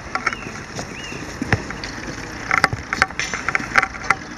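Scattered knocks and clatter of fire hoses and their couplings being handled on pavement during a hose-laying drill.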